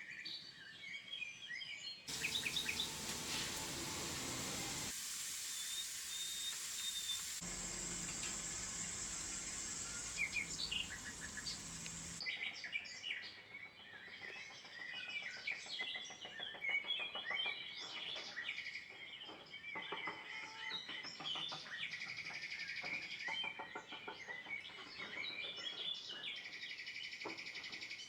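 Songbirds chirping and singing in many short calls. For about ten seconds near the start, a louder steady hiss sits under them.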